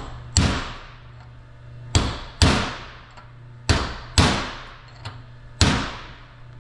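Hammer striking a metal punch to drive a needle post into the planet gear cage of a torque hub final drive's inner gear set. There are six sharp metallic strikes, each ringing briefly, some in pairs about half a second apart.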